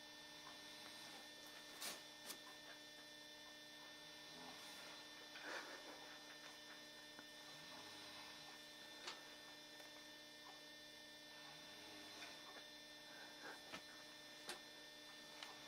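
Near silence with a steady electrical hum, under which a person snores softly, one faint breath roughly every four seconds. A few small clicks are scattered through it.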